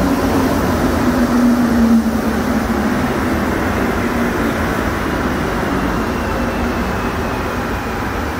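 Montreal Metro rubber-tyred train running: a steady rumble with a low motor hum that sinks slightly in pitch. The level eases off after about two seconds.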